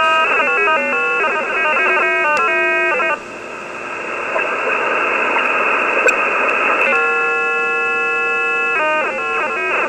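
Unidentified signal on the 10-metre amateur band, heard through a shortwave receiver: several steady tones sound at once and step down in pitch together in quick staircases. About three seconds in they give way to receiver hiss, and near seven seconds the tones return and start stepping down again.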